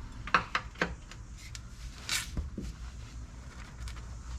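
Scattered light clicks and knocks of hand tools being handled while the transmission's bell housing bolts are undone, about eight in the first three seconds, over a low steady hum.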